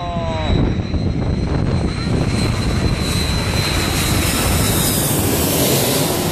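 Jet engines of a twin-engine wide-body airliner passing low overhead on landing approach. A steady high whine sits over a roar that grows fuller and brighter as the plane comes overhead near the end.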